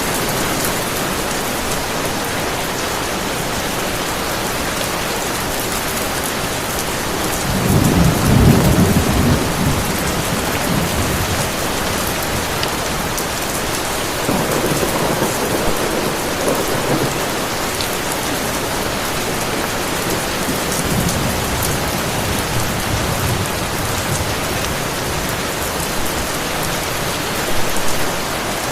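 Heavy rain falling steadily, with thunder rolling in low rumbles: the loudest about a quarter of the way in, weaker ones around the middle and a short one near the end.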